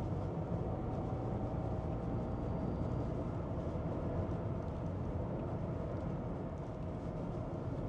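Steady road noise of a car being driven, a low, even hum of tyres and engine.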